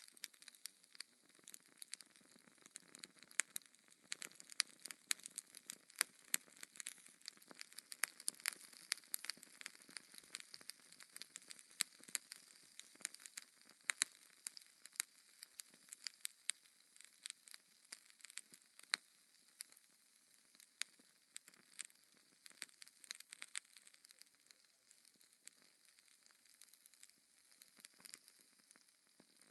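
Burning logs crackling: a steady soft hiss broken by frequent sharp pops and snaps, busiest in the first half and thinning out later.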